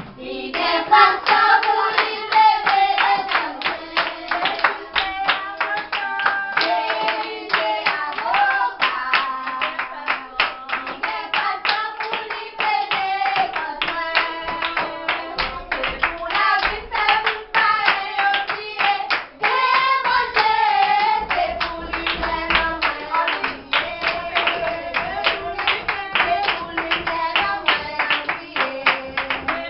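Group of children singing a song together, with steady rhythmic hand clapping keeping the beat.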